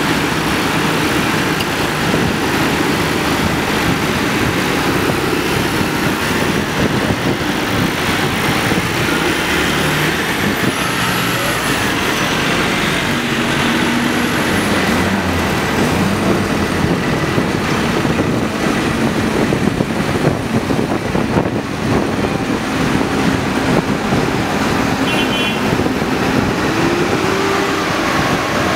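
A procession of farm tractors and a backhoe loader driving past one after another, their diesel engines running, the engine pitch rising and falling as each one goes by.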